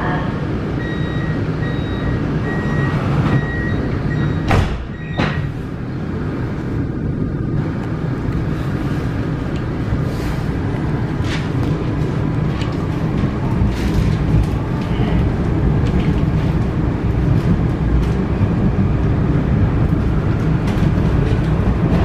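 Vienna U-Bahn U1 train heard from inside the car: a high repeated door-closing warning beep for a few seconds, then the doors shut with two thumps about half a second apart. The train pulls away with a faint rising motor whine and runs on with a steady low rumble.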